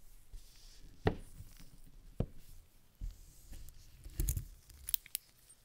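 Handling noise from gloved hands on a desk mat: two sharp knocks as an Apple Watch with a rubber sport band is laid down, then a cluster of rustles and light clicks, with a few bright metallic ticks, as a wristwatch on a stainless steel link bracelet is picked up near the end.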